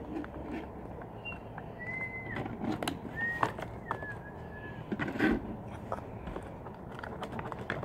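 A bird gives a few short, high whistled notes over steady outdoor background noise. Scattered soft clicks and crinkles come from a small plastic bag of slime mix being squeezed and kneaded by hand.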